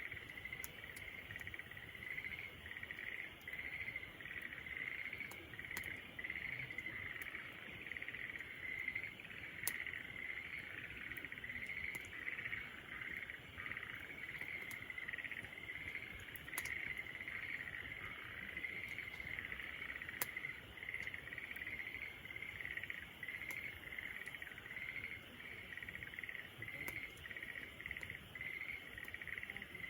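Insects chirping in a steady, pulsing chorus, with a wood campfire giving off sharp crackles now and then.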